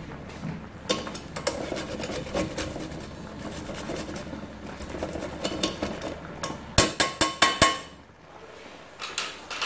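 A kitchen utensil clinking and knocking against cookware, with a quick run of about five sharp, ringing metallic knocks near the end.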